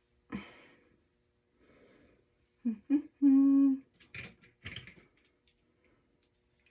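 A woman humming with her mouth closed: two short rising hums, then one held note about half a second long, followed by two short breathy rustles.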